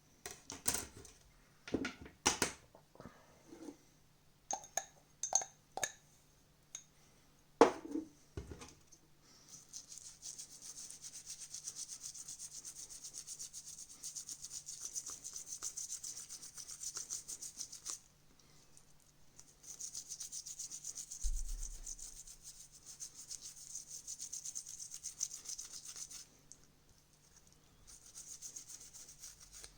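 A few sharp clicks and knocks of small plastic parts being handled. Then rapid, fine scrubbing on a sticky plastic part of a TV remote, cleaning it, in spells of several seconds with short pauses.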